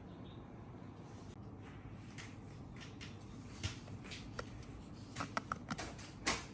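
Light clicks and taps of small hard parts and tools being handled while a laptop is worked on, over a steady low hum of room noise. They start about halfway through and bunch up near the end, with the sharpest click just before the end.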